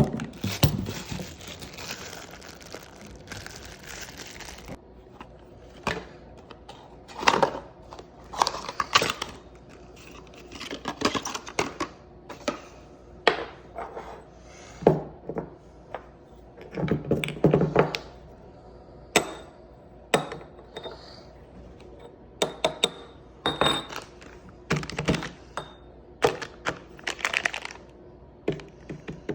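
Irregular knocks, clinks and rustling from metal parts and tools being handled during work on a go-kart engine, with a short hiss near the start.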